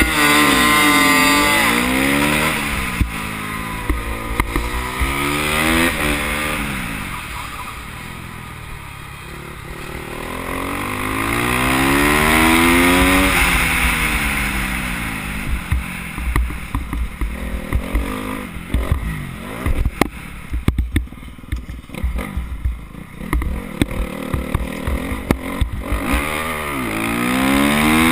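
Supermoto motorcycle engine at race pace, revving up through the gears and dropping back again and again. Through the middle and later part the engine note turns choppy, broken by many sharp clicks and pops, before it revs up again near the end.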